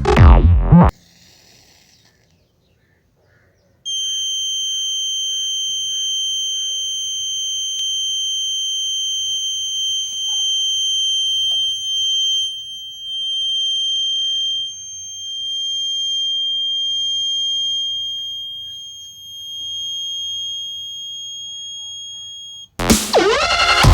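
Buzzer of a homemade BC547 transistor fire-sensor alarm circuit sounding one steady, high-pitched tone, the circuit's alarm signal. It starts about four seconds in, swells and dips in loudness a few times, and cuts off near the end.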